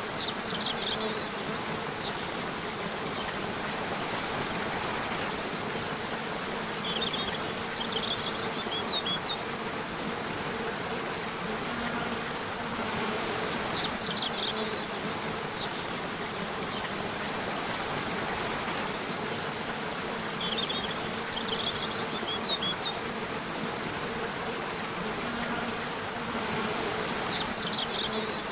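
Nature soundscape: steady rushing water under a low, even insect buzz, with brief bursts of high bird chirps about every six or seven seconds.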